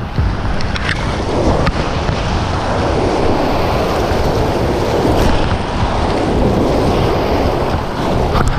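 Whitewater rapids rushing and splashing close around a kayak, a steady loud churn, with a few brief knocks about a second in and again near the end.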